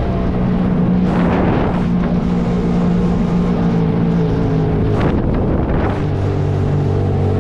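Jet ski engine running steadily under way, its note dropping lower about six seconds in, with wind on the microphone.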